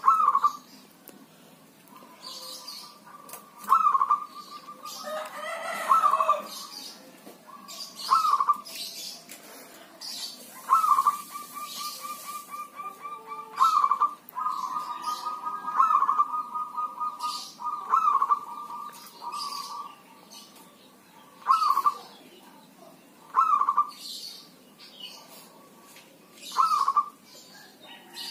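Zebra dove (perkutut) cooing its song: loud phrases near the same pitch about every two seconds, linked by quick rolling trills.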